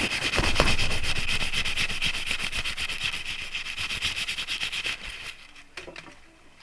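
A fast, even scraping made of many quick strokes, like something being rubbed or sanded. It fades and stops about five seconds in, followed by a few faint clicks.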